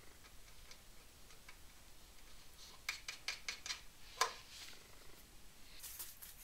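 Small metal clicks and taps of an M5 screw and T-nut being handled and fitted against a plywood board. There is a quick run of light clicks about three seconds in, a sharper click just after four seconds, and more light clicks near the end.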